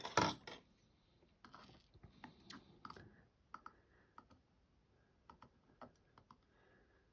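Small clicks and taps from handling the pins and parts of a disassembled tier-key lock. A louder rattle comes in the first half second, followed by scattered single clicks.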